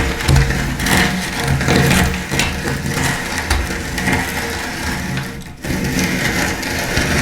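Electric meat grinder running, its motor humming steadily while dry, crunchy food cracks and crunches as it is ground. The sound dips briefly about five and a half seconds in, then carries on.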